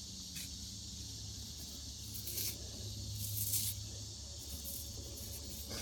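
Soft scratchy rasps of a thumb rubbing dirt off a freshly dug chipped-stone knife blade, several short strokes with the longest about three and a half seconds in, over a steady high background hiss.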